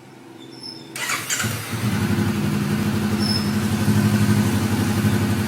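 Honda CB500X parallel-twin engine being started: about a second in the starter cranks briefly, then the engine catches and settles into a steady idle.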